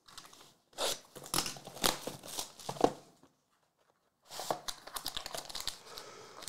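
Plastic wrapping on a box of football trading cards being torn open and crinkled by hand: a spell of crackling from about a second in to three seconds, a short pause, then more crinkling from about four seconds on.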